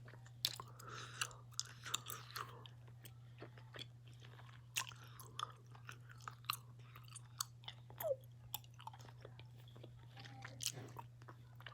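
Mouth chewing a giant gummy bear: irregular sharp mouth clicks and smacks, several a second, over a faint steady low hum.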